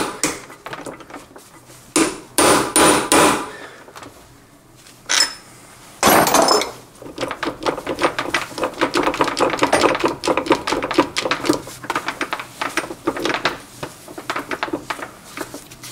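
A hammer tapping down on the gear shafts of a Toyota Corolla manual gearbox, four blows between two and three and a half seconds in, then a short metallic clatter about six seconds in. After that come many quick small metal clicks as the gear clusters are worked down into the case together.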